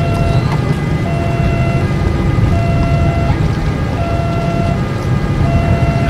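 Railway level-crossing warning siren sounding an alternating two-tone wail, each tone held about three-quarters of a second, over the low rumble of an approaching train.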